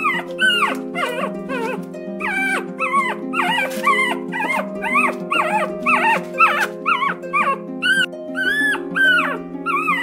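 Polar bear cub whining: a quick series of short, high cries, each rising and falling in pitch, over background music with sustained low notes.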